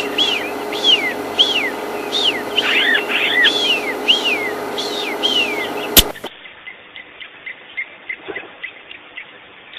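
Long-tailed (magpie) shrikes calling: a run of clear, arching whistles repeated about twice a second, with several birds overlapping. About six seconds in there is a sharp click, and the sound drops to a fainter, duller run of short chirps.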